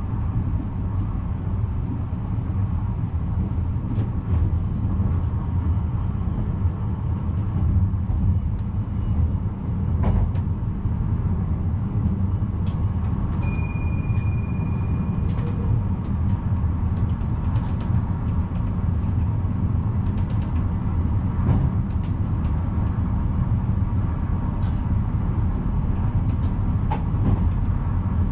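VIRM double-deck electric train running along the line, heard from the cab as a steady low rumble with occasional clicks. A brief high-pitched tone sounds about halfway through.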